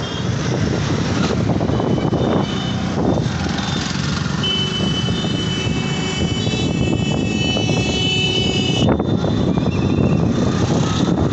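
A moving open three-wheeler's engine and road and wind noise heard from on board, running steadily at road speed. A high, steady tone joins about four seconds in and cuts off suddenly near nine seconds.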